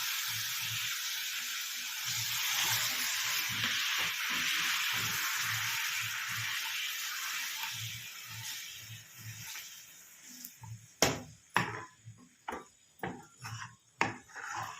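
Hot melted sugar in a kadhai sizzling as ginger and lemon juice hit it, stirred with a soft rhythmic knocking of a few strokes a second. The sizzle fades away after about eight seconds, and sharp clicks and knocks of the spoon against the pan follow near the end.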